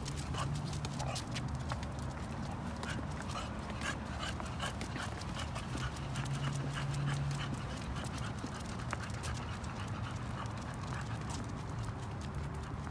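A leashed dog walking on a concrete sidewalk, its claws clicking on the pavement among a person's footsteps, many small irregular ticks over a steady low rumble.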